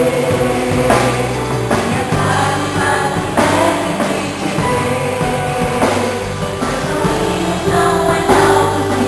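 Gospel worship band playing live with a drum kit and held instrument chords, with group singing over it.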